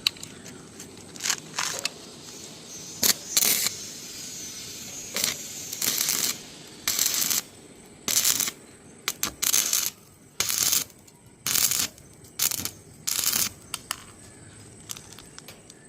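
Electric arc welding: the arc crackling and sizzling in a series of short bursts, about a dozen, each lasting under a second, with quieter gaps between them.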